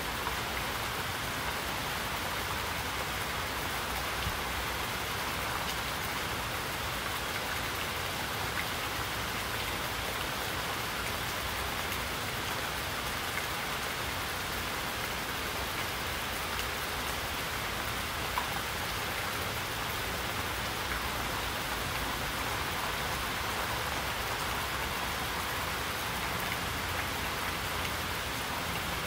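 Steady rainfall: an even, continuous hiss of rain with a few faint drop ticks.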